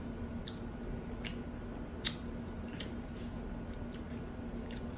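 A person chewing food, with soft wet mouth smacks every half second to a second, the sharpest about two seconds in.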